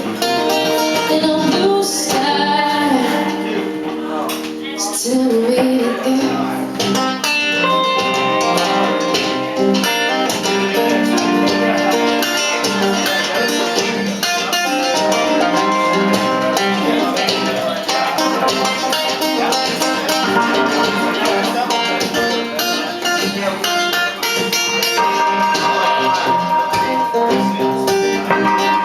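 Guitar-led instrumental break of a song, played live.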